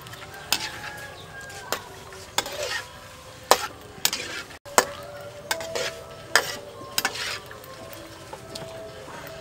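Metal ladle stirring shrimp in a wok of hot water: repeated clanks and scrapes against the wok, some ringing briefly, over a steady hiss from the hot water.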